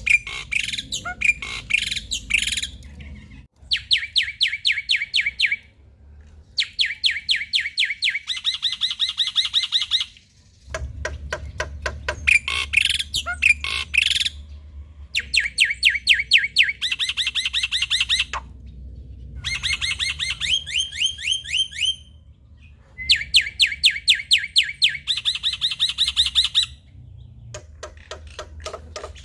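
Male black-winged myna (jalak putih) singing: bouts of a couple of seconds made of very fast rattling strings of repeated notes mixed with harsh calls, separated by short pauses.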